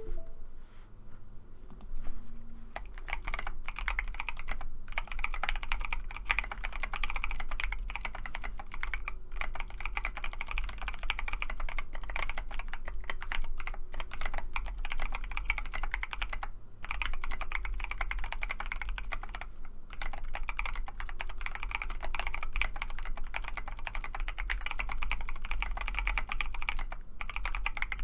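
Typing on a Mysterium TKL mechanical keyboard: a dense, continuous run of key strikes that starts about two seconds in, with a few brief pauses.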